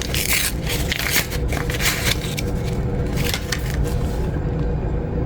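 Crinkling and rustling of paper tea bag wrappers being handled, a quick run of short crinkles over a steady low hum.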